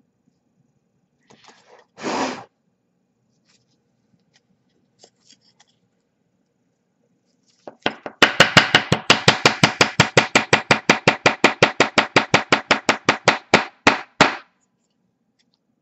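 Fast, even scrubbing strokes, about seven a second for some six seconds, from cleaning sand grit off a small brushless drone motor's shaft. A single short scrape comes about two seconds in.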